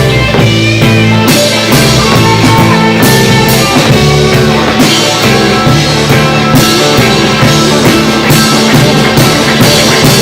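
Live rock band playing loudly: guitars, bass and a drum kit, with a steady drum beat, in a stretch where no singing was picked up.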